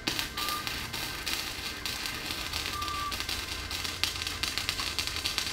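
Gasless flux-core wire welder tacking steel tubing: the continuous crackle and sizzle of the welding arc, with a low steady hum underneath.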